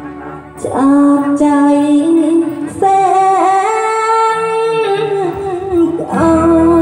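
A woman singing a Thai song live into a microphone over backing music, holding long notes with a short break near the end.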